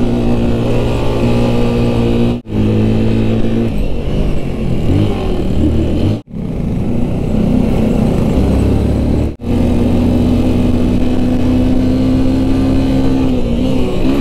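Motorcycle engine running while riding, pitch shifting up and down with the throttle, in several short clips joined with three abrupt cuts.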